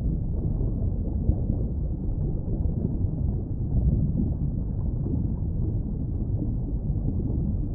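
Steady low underwater noise, an even rush with no distinct calls or clicks.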